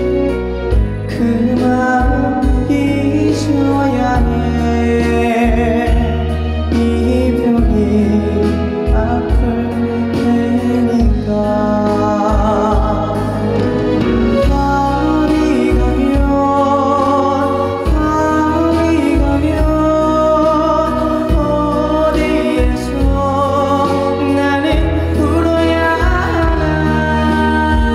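Live pop ballad performance: a solo voice singing with vibrato over a backing band with bass and guitar, played through a stage sound system.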